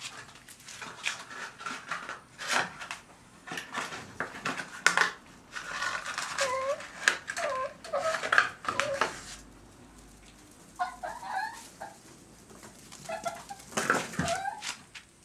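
Japanese raccoon dog pups whimpering, giving short high chirping calls that rise and fall, in several bouts. Scattered clicks and knocks come in between the calls.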